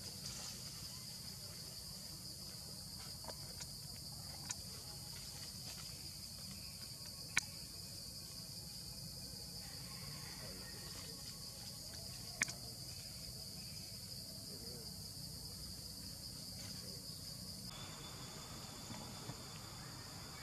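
Steady high-pitched drone of insects, with a few sharp clicks, the loudest about seven and twelve seconds in.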